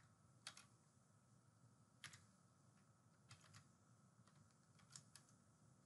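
Faint, scattered keystrokes on a computer keyboard: a handful of separate short clicks spread over a few seconds, with near silence between them.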